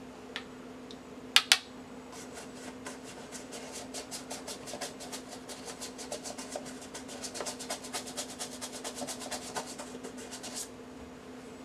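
A toothbrush scrubbing the inside of a leather loafer in quick back-and-forth strokes, several scratchy strokes a second, stopping about a second before the end. Two sharp clicks about a second and a half in are the loudest sounds.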